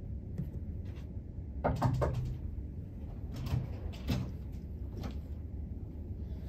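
Steady low room hum with a few scattered clicks and knocks, the most prominent around two seconds in and then again at about three and a half, four and five seconds, like a door or furniture being handled.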